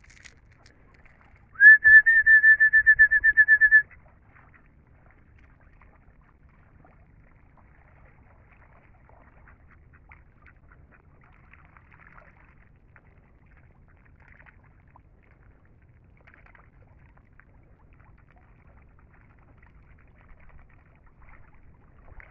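A loud, high whistle, held at one pitch for about two seconds with a fast warble in it, a call that draws the ducks in.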